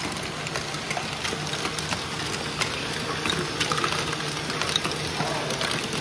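Lego Technic Great Ball Contraption modules running: a steady motor hum under a constant patter of small plastic clicks and clatters from gears, lifts and balls.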